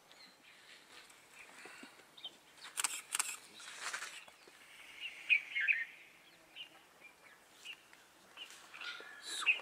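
Wild birds chirping in short, scattered calls, with a quick cluster of chirps about five seconds in. A few brief rustles sound around three to four seconds in.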